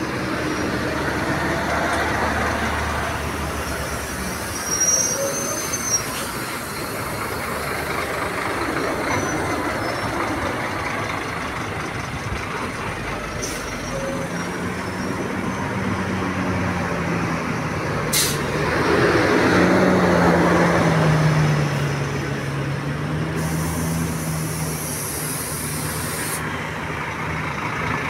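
Large diesel buses running in traffic, with a low engine hum that wavers in pitch from about halfway in. The sound swells loudest as a bus passes about two-thirds of the way through, and there is one sharp click just before that.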